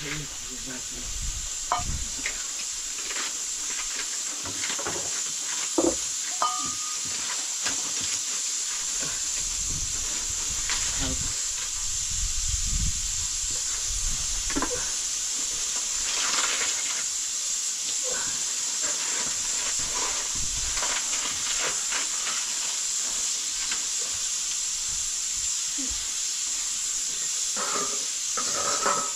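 Steady sizzling hiss of food cooking, growing louder over the first few seconds, with scattered light clicks and knocks.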